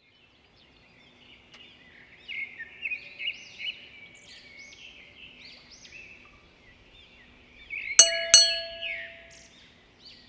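Intro sound effects: a string of short, high chirping sweeps, then two sharp clicks with a ringing ding, about half a second apart, near the end.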